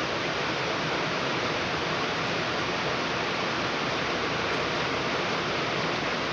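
Heavy rain falling, an even, steady hiss.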